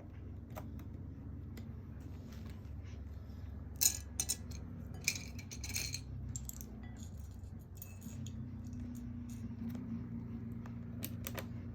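Hard plastic LEGO pieces clicking and rattling: scattered sharp clicks, a cluster of louder ones about four seconds in and a brief rattle soon after, over a steady low hum.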